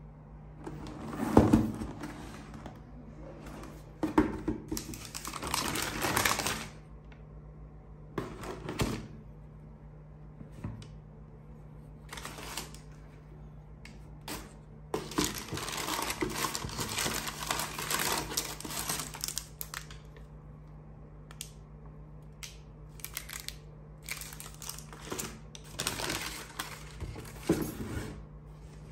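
A cardboard shoebox being handled and opened, with a sharp knock early on, then the white tissue paper inside rustling and crinkling for several seconds around the middle. Scattered taps and rustles of cardboard and paper follow.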